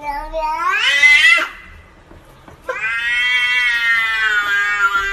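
Domestic cat meowing in two drawn-out calls that sound like "no" and "whyyy". The first rises in pitch and breaks off about a second and a half in. After a short pause comes a long, slowly falling yowl.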